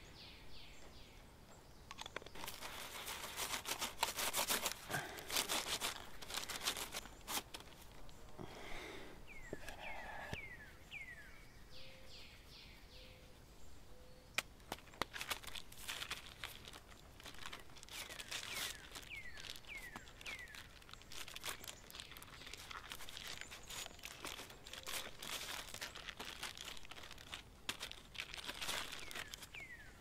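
Baking paper crinkling and rustling in irregular bursts as pizza dough is handled and pressed onto it, loudest in the first third. Short falling bird chirps sound now and then in the background.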